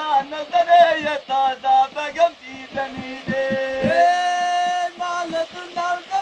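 A man singing in short melodic phrases, holding one long note about four seconds in.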